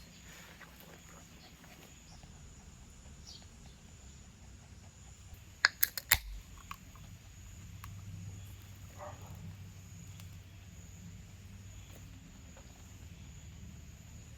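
Outdoor ambience of insects, with a steady high-pitched drone over a low background hum. A few sharp clicks come in a quick cluster about six seconds in.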